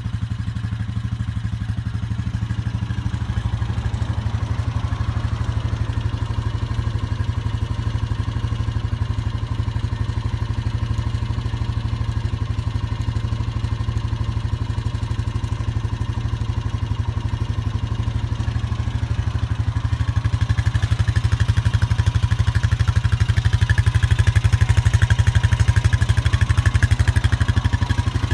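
Honda TRX420FE1 Fourtrax ES quad's 420 cc single-cylinder four-stroke engine idling steadily in neutral, growing somewhat louder in the last several seconds.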